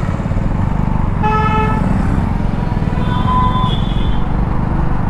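A vehicle horn honks once, briefly, about a second in, and a fainter, higher horn sounds near the middle. Underneath, a motorcycle engine runs steadily with road noise as the bike rolls through traffic.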